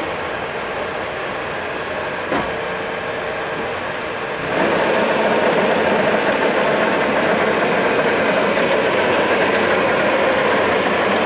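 Samstar 40x160 engine lathe running, its 20 hp main motor driving the geared headstock and the four-jaw chuck: a steady mechanical running sound. One click about two seconds in, and the running gets louder about four and a half seconds in.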